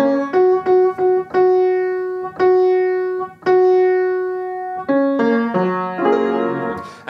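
Upright piano playing a vocal warm-up pattern: one note struck six times, the last three held and left to ring, then a few lower notes stepping down near the end.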